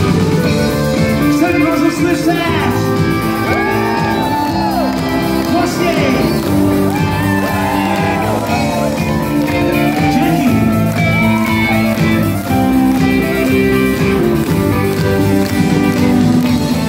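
Rock band playing live: a male vocalist singing over electric guitars and drums.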